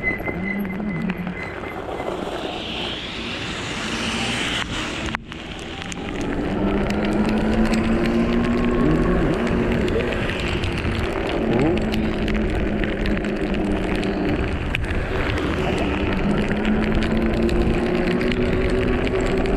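Wind and road noise of a Super73 RX electric bike riding through rain, rushing over the camera microphone. The sound drops out briefly about five seconds in, and a steady low hum runs under the rush after that.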